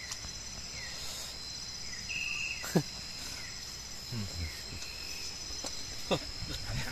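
Night insect chorus of crickets: a steady high-pitched trill, with a few short, higher chirps over it. Two or three sharp clicks, like plates or food being handled, come through, along with a faint low voice about midway.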